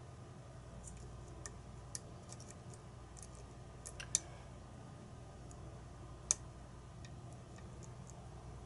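Faint, sparse metallic clicks of a lock pick working the pins of a challenge lock, with two sharper clicks about four and six seconds in.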